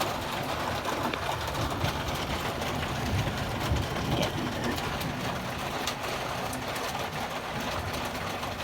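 Steady hiss of heavy rain and wind, with scattered sharp little ticks throughout.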